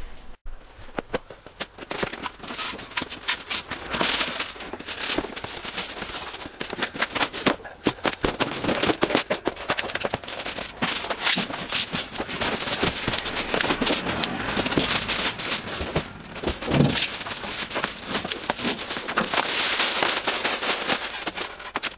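Plastic wrapping, polystyrene and cardboard packaging crinkling and rustling in a dense run of crackles and knocks as a bandsaw is unpacked, with a heavier thump late on.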